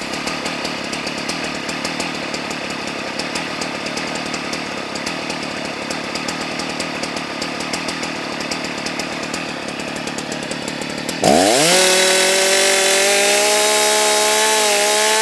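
Husqvarna 181 SE two-stroke chainsaw, about 82 cc, cutting through a log under load with a rough, chattering engine note. About 11 seconds in it comes free of the wood and screams at full revs with no load, much louder and higher. The saw is running on a freshly adjusted carburettor with a new bar and chain.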